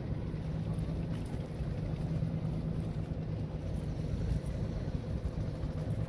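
A boat's engine running with a steady low hum, with wind rumbling on the microphone.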